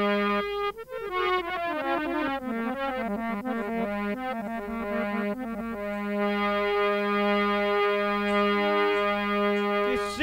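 Instrumental intro music on an electronic keyboard: a held chord, then a quick run of notes stepping downward and back up, then the chord held again.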